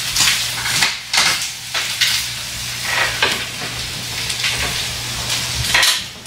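Beef steak and sausages sizzling on a foil-lined grill pan, with short scrapes and clicks as metal tongs turn and shift the meat on the foil. A faint steady low hum runs underneath.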